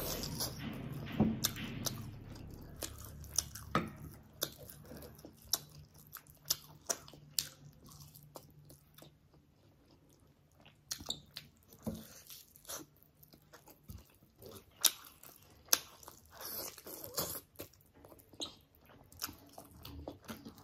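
Close-up mouth sounds of eating a curried chicken drumstick by hand: biting meat off the bone and chewing, with many short wet clicks and smacks. There is a brief pause about halfway through.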